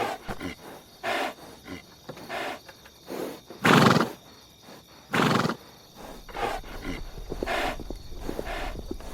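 Horse calling: a run of short, breathy neighs or blows about a second apart, the loudest two about four and five seconds in. A low steady hum comes in after about six seconds.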